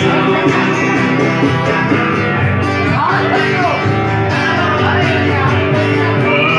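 Music led by strummed acoustic guitar, playing steadily, with some singing.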